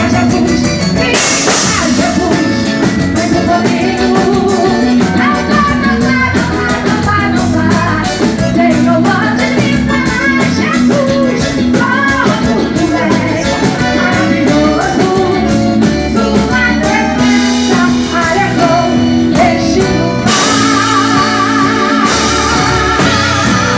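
Live gospel band playing in a forró rhythm, with drum kit, guitar, bass and a keyboard on an accordion sound, and singing over it.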